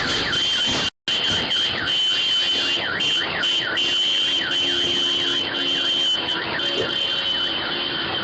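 Car alarm going off: a rapid, repeating rising-and-falling electronic sweep over a steady high tone, cut briefly about a second in.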